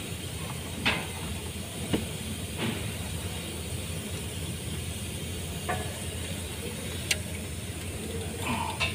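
Steady low hum and hiss under a handful of light, sharp clicks and taps a second or more apart, from tools and parts being handled at a Mitsubishi Pajero engine's timing-belt tensioner pulley.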